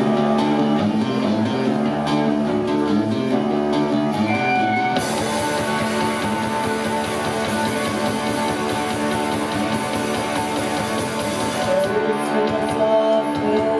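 Rock band playing live, electric guitars and bass carrying the song. About five seconds in the full band comes in, brighter and fuller, and thins out again near the end.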